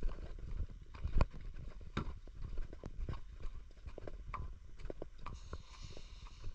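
Walking footsteps on a paved promenade, about two steps a second, over a low rumble of wind on the microphone. A brief hiss near the end.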